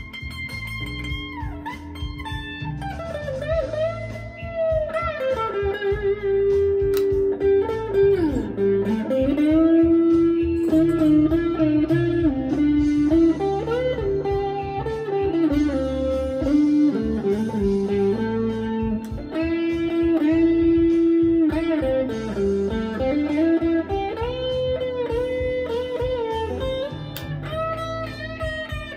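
Electric guitar playing a blues lead with frequent string bends over a backing track with drums and bass.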